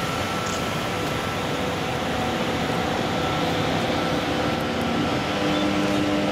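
Class 363 electric locomotive approaching slowly: a steady hum and whine from its electrical equipment, with several held tones. A lower tone comes in about five seconds in and the sound grows a little louder as it nears.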